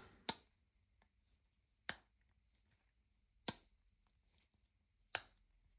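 Slipjoint pocket knife blades (Case-made Zippo Sodbuster Juniors) snapping into place against the backspring, four sharp clicks about a second and a half apart, as the action is worked.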